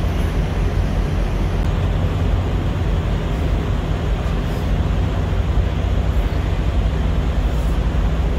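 Diesel truck engine idling: a steady, unbroken low rumble.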